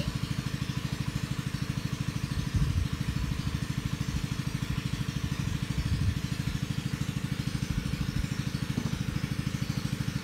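A small engine idling steadily with a fast, even beat, and two brief low bumps a few seconds apart.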